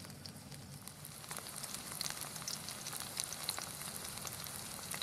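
Barramundi and corn fritters sizzling in hot oil in a stainless steel frying pan, a steady hiss with many small crackles and pops that grows a little louder about a second and a half in.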